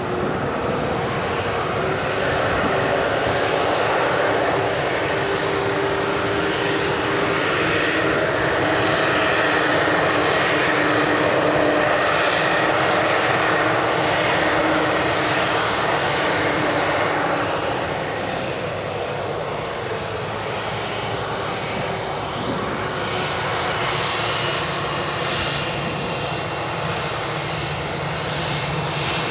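A Boeing 787's two Rolls-Royce Trent 1000 turbofan engines running at taxi power as the airliner taxis, a steady jet rumble with whining tones that drift slowly in pitch. It swells slightly in the middle, and a higher whine comes up near the end.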